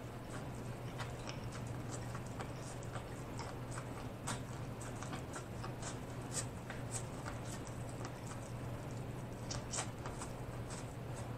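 Close-miked biting and chewing of corn on the cob: many small irregular crunches and wet clicks as kernels are bitten off the cob, over a steady low hum.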